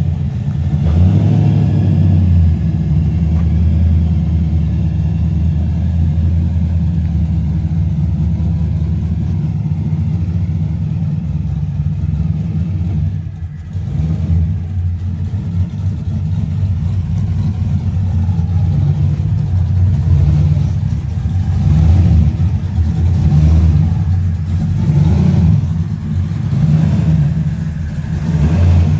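Chevrolet Camaro's LS1 5.7-litre V8 running just after starting, loud and steady with an uneven, pulsing exhaust note. It briefly drops in level about halfway through.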